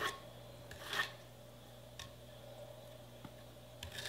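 Metal bench scraper drawn against the buttercream crumb coat of a cake on a turntable: a few short, soft scrapes and light ticks, the clearest about a second in and near the end, over a faint steady hum.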